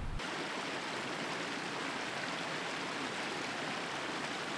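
Running water of a stream, a steady rushing hiss.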